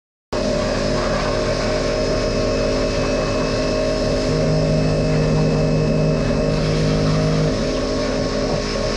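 Pressure washer running steadily while its jet cleans an excavator bucket; it starts abruptly just after the beginning. An extra steady hum comes in about four seconds in and stops about three seconds later.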